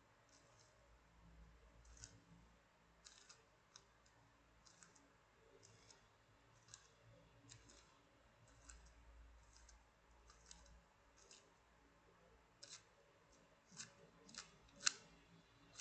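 Plastic pieces of a YJ O2 Cube V2 puzzle clicking as its layers are turned by hand: faint, irregular clicks about one or two a second, with a few louder clicks near the end.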